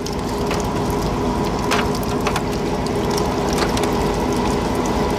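Fishing boat machinery running with a fast, steady rattling clatter and a constant hum, growing louder over the first second or two, with a few sharp clicks on top.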